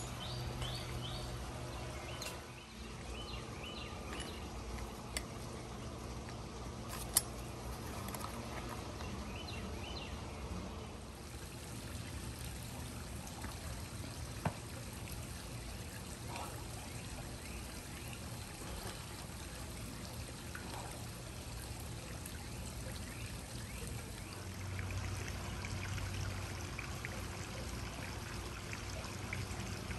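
Steady trickle of running water, with a low hum underneath and a couple of sharp clicks.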